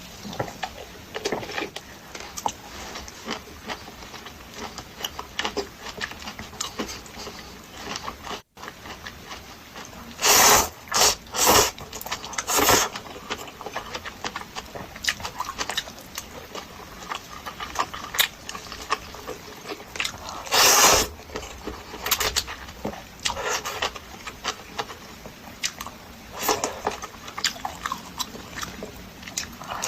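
Close-miked eating of Indomie instant noodles: wet chewing and small mouth clicks throughout, with a few loud slurps about ten to thirteen seconds in and again around twenty-one seconds.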